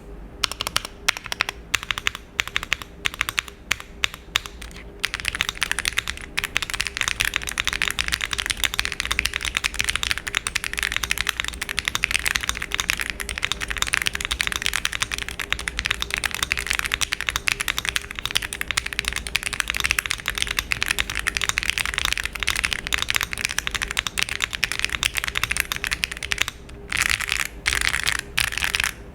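Mechanical keyboard with Akko Matcha Green V3 Pro linear switches and PE foam being typed on, giving a muted, deep clack. A few separate keystrokes come first, then fast continuous typing, a short pause near the end and a last quick burst.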